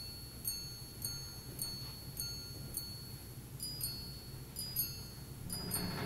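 Ulysse Nardin Circus Minute Repeater's hammers striking its gongs. A run of single, evenly spaced strikes about twice a second gives way, about three and a half seconds in, to paired two-tone "ding-dong" strikes: the repeater chiming the hours and then the quarters.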